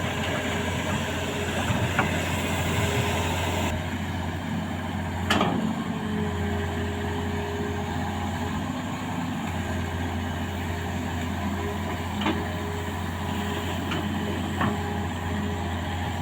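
Hitachi Zaxis 210F excavator running steadily with a low engine hum and a faint held whine. There is one sharp clank about five seconds in and two lighter knocks later.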